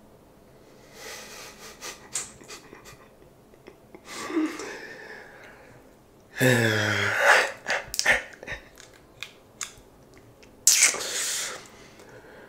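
A man flossing his teeth with a floss pick up close: small clicks and snaps from the mouth, breathy noises, a short voiced grunt about six seconds in and a loud burst of breath near eleven seconds.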